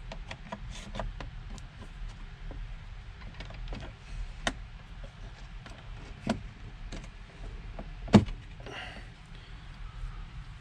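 Scattered plastic clicks and knocks as the HVAC control panel is unlatched with release rods and worked out of the dash, with one sharp louder click about eight seconds in, over a steady low hum.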